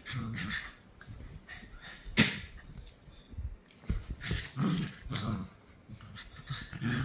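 Two dogs play-wrestling, with short bouts of low growling near the start and again in the second half. A single sharp knock about two seconds in.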